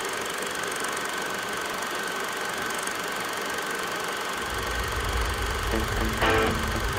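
Film projector running: a steady mechanical whirring rattle with a thin high whine. About four and a half seconds in a deep low hum comes in, and near the end plucked music notes begin over it.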